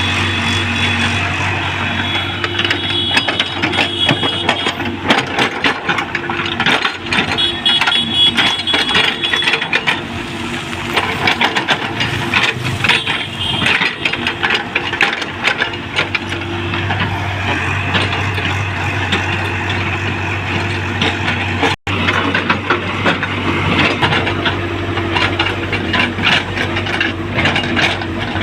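Excavator's diesel engine running steadily under load, with repeated metallic clanks and rattles from the working gear and intermittent high squealing. The sound drops out for an instant about two-thirds of the way through.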